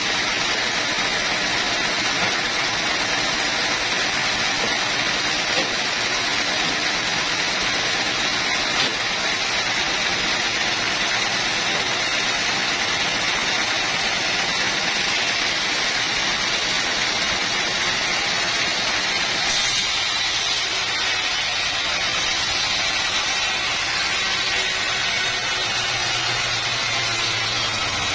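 Sawmill machinery running steadily, a continuous mechanical noise. About two-thirds of the way in the sound shifts, and a low hum comes in near the end.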